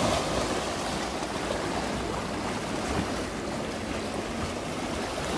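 Sea surf washing over shoreline rocks, a steady rush of water.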